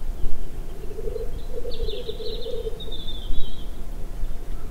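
Male black grouse giving its lekking display song, the bubbling, cooing 'rookoo' warble. It starts about a second in and lasts roughly two and a half seconds.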